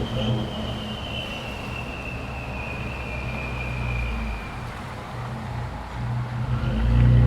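Ford Expedition/Navigator 3.5 L twin-turbo EcoBoost V6 with a turbo-whistle exhaust package: a high turbo whistle slides slowly down in pitch and fades as the turbos spool down, over a low engine drone. Near the end the engine picks up and grows louder again.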